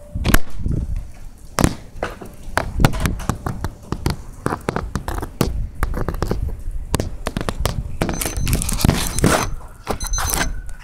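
A phone dangling on a line out of a window in a blizzard, knocking and scraping again and again against a house window, an air conditioner and the siding, with wind rumbling on its microphone. The scraping thickens near the end as it is hauled in.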